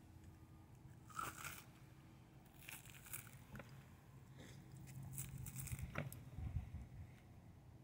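Skin being pulled and torn off a flathead catfish with pliers: faint, scattered crackling and scraping, with a sharper tick about six seconds in.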